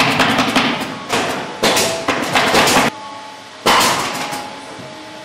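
Workshop clatter from wooden sofa frames being handled: a quick run of knocks, then several loud bursts of knocking and rasping, each about half a second long, with a pause near the end.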